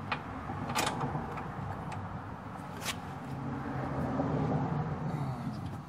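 Lawn tractor's Kohler Command engine running steadily, with two sharp clicks about one and three seconds in; the running dies away at the very end.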